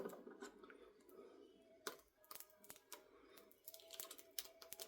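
Near silence with a few faint, scattered clicks and taps from hands handling the RC truck and its packaging.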